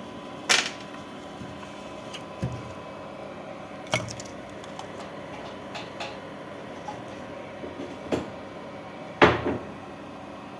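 A few scattered knocks and clicks of small objects being handled and set down, with the loudest knock about nine seconds in.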